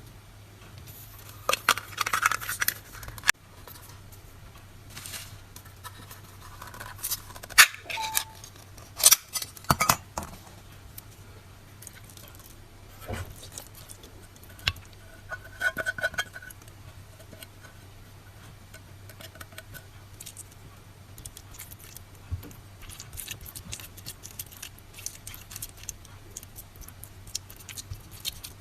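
Cat food being prepared by hand: irregular clinks, taps and scrapes of utensils against cans and dishes. The sharp clicks cluster around two seconds in and again past the seven-second mark, where the loudest one falls.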